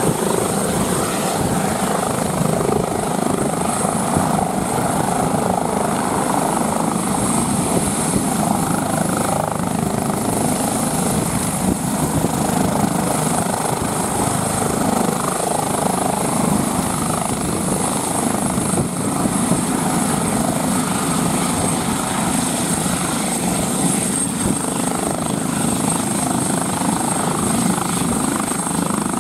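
Airbus H145 helicopter hovering low and touching down, its rotors and turbines running loud and steady with a high turbine whine over the rotor noise.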